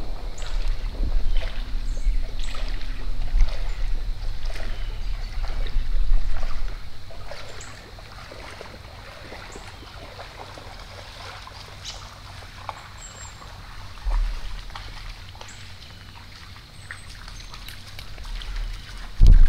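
Wind buffeting the microphone, a low rumble that dies down after about seven seconds, with scattered small ticks and rustles.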